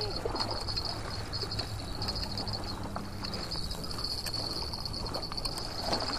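Insects trilling steadily in a high, pulsing buzz, over a low background rumble.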